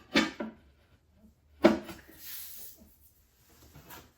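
Hard clacks as a pottery bat and wheel equipment are handled and set down: two quick knocks near the start and a louder one with a short ring about halfway through, followed by a soft rubbing scrape.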